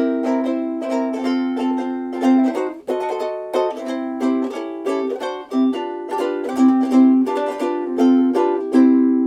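Cultivate Ukulele D0M soprano ukulele with a solid African mahogany Ditson-style body being played, plucked notes and chords in quick succession. There is a brief break about three seconds in, and a chord is left ringing near the end.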